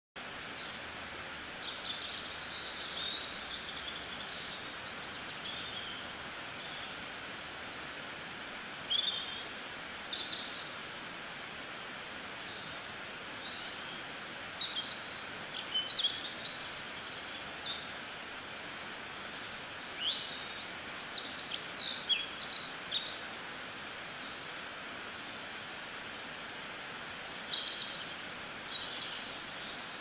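Several songbirds chirping and singing in short phrases that come in bursts every few seconds, over the steady rushing hiss of a shallow rocky stream.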